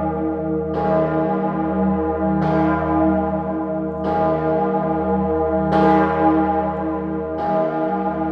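Salzburg Cathedral's great Salvator bell, cast in 1961 by Oberascher and tuned to E-flat, swinging alone. Its clapper strikes about every 1.7 seconds in an even beat, each stroke renewing a deep, long-ringing hum.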